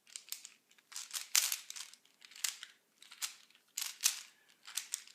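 A plastic speed cube being turned fast during a solve, its layers clicking and scraping in quick clusters about once a second. The solver calls the cube greasy.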